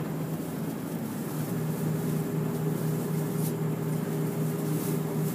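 Route bus engine running steadily, heard from inside the cabin as a low hum with a steady tone that comes up about a second in.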